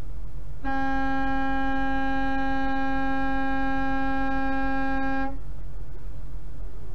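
A semi truck's air horn blown in one long blast of about four and a half seconds, a steady single pitch that starts and stops abruptly, over a low steady rumble.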